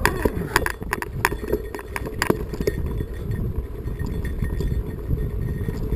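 Mountain bike climbing a rocky singletrack: sharp knocks and clatter as it rides over rocks during the first couple of seconds, then a steady low rumble of tyres on dirt.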